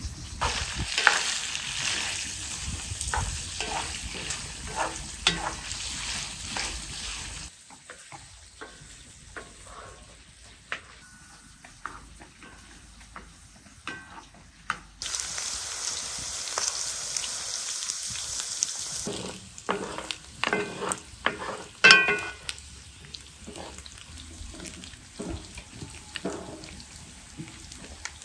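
Potatoes frying in hot oil: a steady sizzle that stops abruptly about a quarter of the way in and comes back for a few seconds around the middle. Sharp clicks and knocks of utensils run through it, loudest in a cluster later on.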